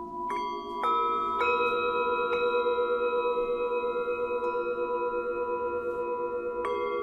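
Tibetan singing bowls struck one after another, about five strikes at different pitches, their tones ringing on together with a steady pulsing beat.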